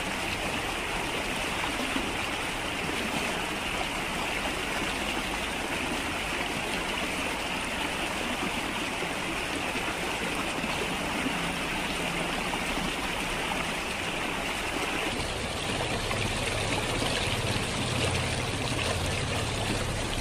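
Shallow, fast-flowing stream rushing steadily over its bed. About three-quarters of the way through, the rush turns fuller and a little louder, with more low rumble.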